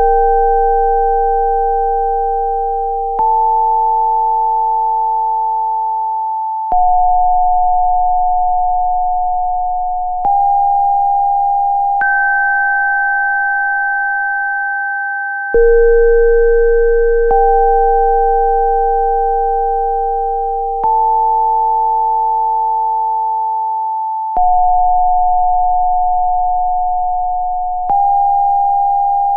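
Electronic sine tones of a Rife-frequency sound-therapy track: several pure tones sound together, a new one starting sharply about every three and a half seconds and fading slowly under the next, in a sequence that repeats about every fifteen seconds.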